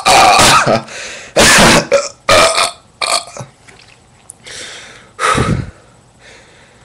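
A person burping again and again: a string of loud, rough burps in the first three seconds or so, then after a short pause one more loud burp a little past five seconds.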